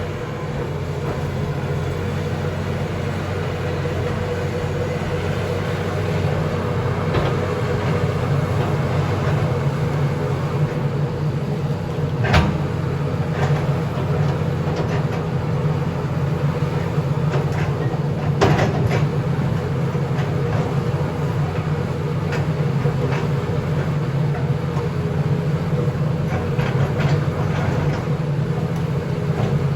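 John Deere backhoe's diesel engine running steadily, with a sharp knock or clank twice, about six seconds apart.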